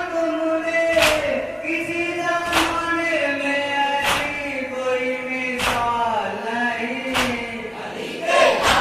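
Group of men chanting a noha (Shia lament for Muharram) in unison, with a sharp slap on a steady beat about every second and a half, typical of hands striking chests in matam.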